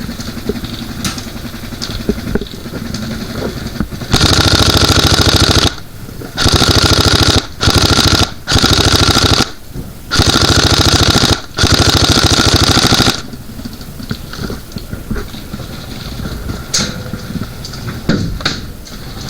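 Airsoft electric gun firing on full auto: six long bursts of one to two seconds each, a fast, even mechanical rattle, with short gaps between them. Quieter clicks and rustling come before and after the bursts.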